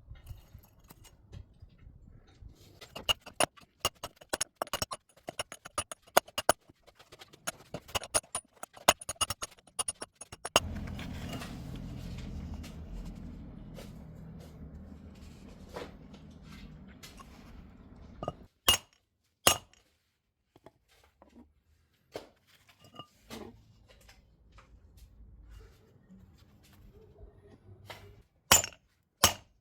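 Steel-on-steel hammer work on a car wheel bearing: a rapid run of light metallic taps and clinks, then a low steady rumble for several seconds, then a few single sharp ringing strikes, twice in quick succession near the end.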